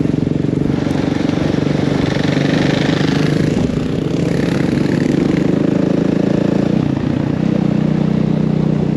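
2019 KTM 450 four-stroke dirt bike engine running under way, with a rushing noise of wind and tyres on gravel. The engine note changes about seven seconds in.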